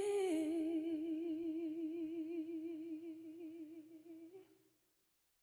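An unaccompanied female voice holds one long sung note with steady vibrato. The note slowly fades out about four and a half seconds in, and silence follows.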